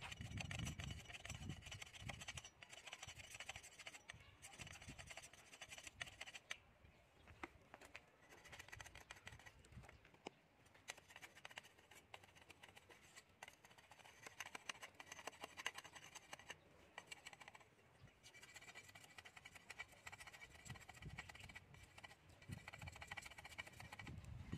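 Faint scraping and scratching of a bamboo rod being cleaned up by hand, with many small irregular clicks.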